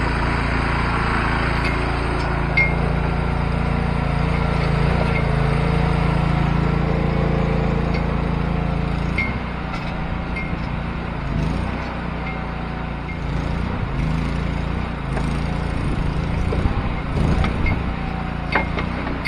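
Small engine of a Go-For-Digger towable backhoe running steadily while its hydraulics are worked, the engine note dropping and shifting under load about halfway through. Light metallic clinks come and go over the engine.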